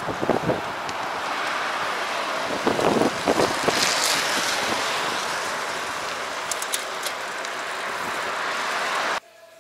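Steady rush of wind on the microphone with road and traffic noise while cycling along a road, with a few short knocks around three seconds in. It cuts off suddenly near the end.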